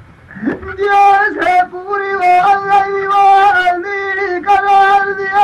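A male folk singer performing a Punjabi dhola, a sung folk ballad, from a cassette recording. He holds long, high notes with wavering ornaments, entering with an upward slide about half a second in after a brief pause.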